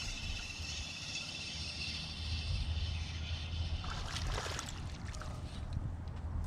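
Water lapping and splashing around a small fishing boat, with a brief, louder splash about four seconds in as a hooked fish is brought to the boat.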